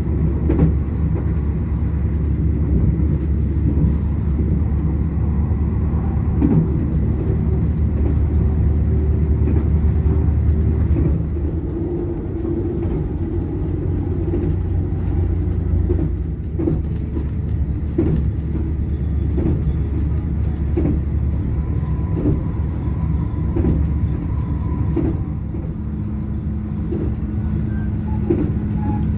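A moving vehicle running with a steady low rumble and scattered light knocks and rattles. The sound drops a little in loudness about eleven seconds in, and a steady low hum joins near the end.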